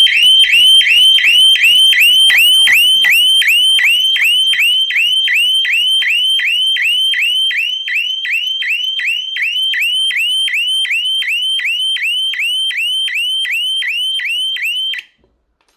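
Electronic siren of a shutter-lock burglar alarm going off: a loud, fast-repeating rising whoop, about three a second. It is sounding because the shutter was raised and the device was not switched off with its key within the 10–15 s delay. It cuts off suddenly near the end.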